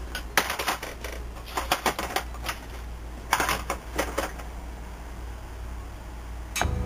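Small metal lathe at work on a motor shaft: a low steady hum with four clusters of quick metallic clicking and clattering in the first four seconds or so.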